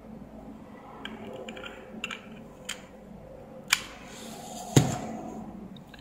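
A handful of small, sharp plastic clicks and knocks from handling a USB cable and an opened power bank as the cable's plug is fitted into the power bank's new USB port and the unit is set down on the bench; the loudest knock comes near the end.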